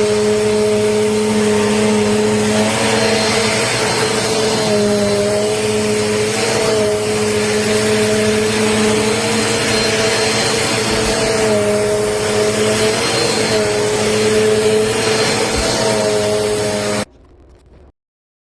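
Upright vacuum cleaner running steadily, a motor whine over a rushing hiss, its pitch wavering slightly as it is worked. It cuts off abruptly about 17 seconds in.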